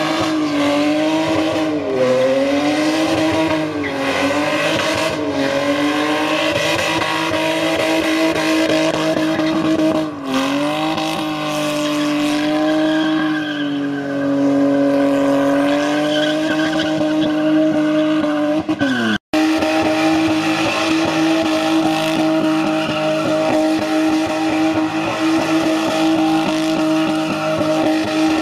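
BMW saloon's engine held at high revs while its rear tyres spin and squeal in a smoky burnout. The engine note wavers up and down at first, dips briefly about ten seconds in, then holds steady and high; the sound drops out for an instant about nineteen seconds in.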